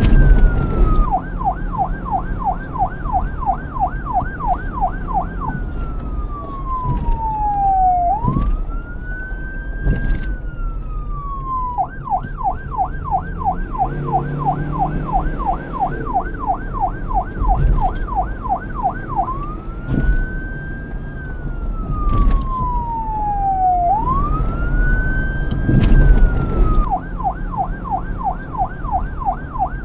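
Police car siren alternating between a slow wail, rising and then falling, and a rapid yelp of several cycles a second, switching back and forth several times. A low vehicle rumble runs underneath.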